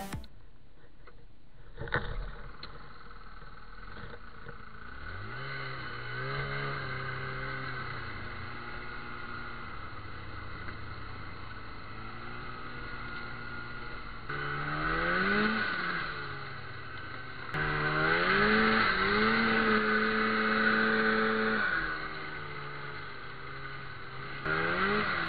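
Snowmobile engine catching about five seconds in with a rising pitch and settling into an idle, then revved briefly and held at higher throttle for several seconds before easing off near the end.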